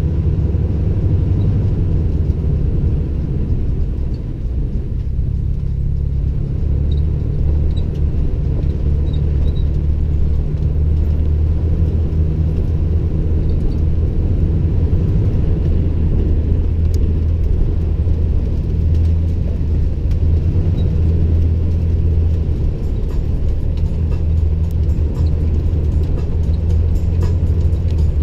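Steady low rumble of a Toyota Tundra TRD Pro pickup driving slowly over a rough dirt and gravel wash: engine and tyre noise with no revving or sudden knocks.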